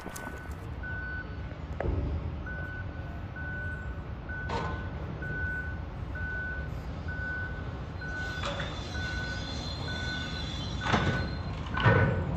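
A heavy machine's backup alarm beeping steadily, a bit under twice a second, over a low diesel engine rumble. Several heavy metal clanks come from steel being handled, the loudest two near the end.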